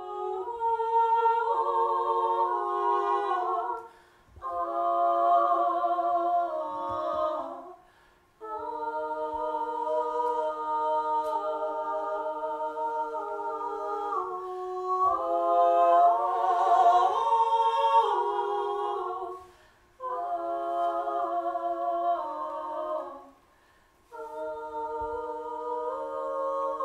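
A small group of women singing a cappella in long held chords, several voice parts together. The chords come in five phrases with short breaks between them.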